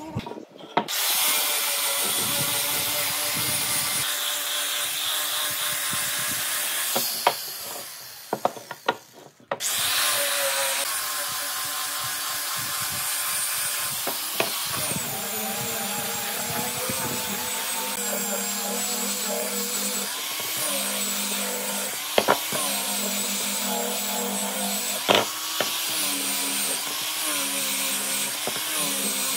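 Electric power tool running on wood, its motor pitch wavering as it works. It dies away about eight to nine seconds in, then starts again and runs on.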